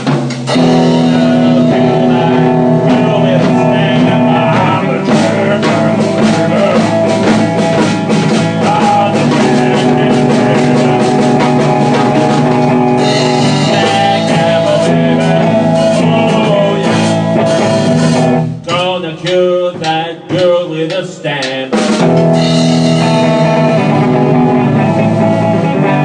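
Blues jam on guitar and drum kit, with no vocals. The band drops to a sparser break about two-thirds of the way through, then comes back in full.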